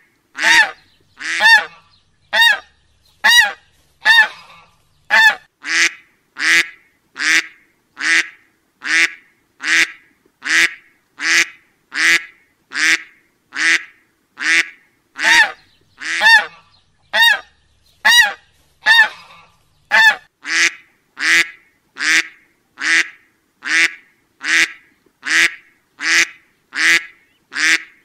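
Short waterfowl calls repeated at a very even pace, about one a second.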